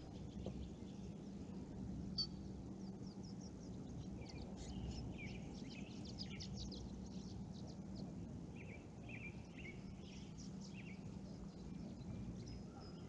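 Small birds chirping and trilling, many short calls one after another, over a steady low background hum.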